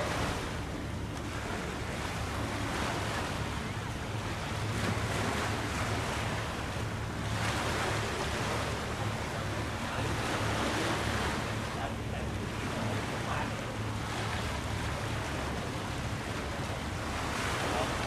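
Wind buffeting the microphone in gusts, swelling about halfway through and again near the end, over a steady low rumble.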